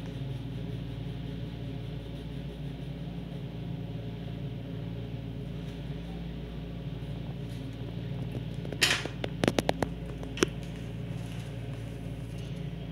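Steady low room hum. About nine seconds in, a quick cluster of crayon scrapes and sharp taps against paper on a glass tabletop, with one more tap about a second later.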